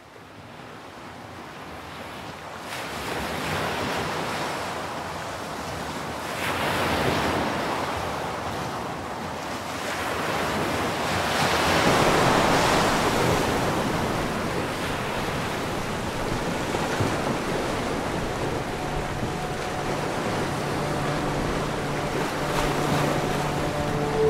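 Sea waves washing in, fading up from silence at the start and swelling loudest around the middle. Steady low tones join in during the last few seconds.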